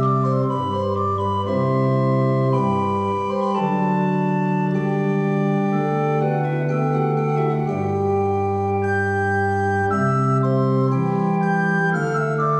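Positive (chamber) organ and upright piano playing an early Baroque piece together, the organ's held pipe tones to the fore, with chords changing about every second.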